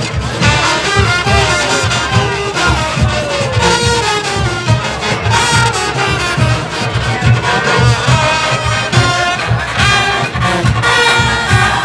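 Junkanoo band music: brass horns playing a melody over a steady pounding drumbeat.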